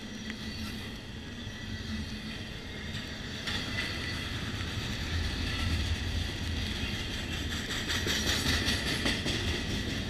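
Loaded double-stack intermodal container cars of a freight train rolling past close by: the steady rumble and roar of steel wheels on rail, with high steady ringing tones above it. Near the end comes a quick run of clicks as wheels cross a rail joint.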